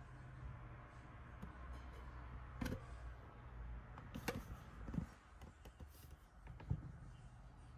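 A few soft, separate clicks and knocks over a low steady hum.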